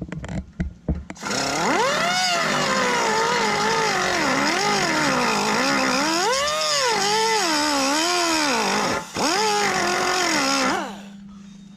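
Pneumatic cut-off tool running in a whine with a hiss of air, its pitch surging up and down unsteadily, after a few short knocks at the start; it cuts out briefly about nine seconds in and winds down shortly before the end. The tool is not getting up to speed, which the owner puts down to low air pressure, only about 40 psi in the compressor tank.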